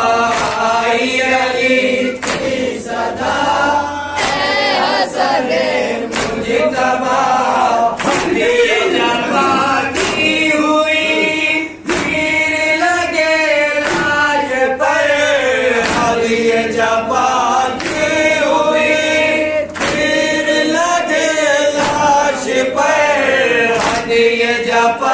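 Men's group reciting a noha (Shia lament) together at microphones, unaccompanied, several voices singing the same line in unison. Under the voices run sharp slaps about once a second, the beat of matam (chest-beating) that keeps time with the noha.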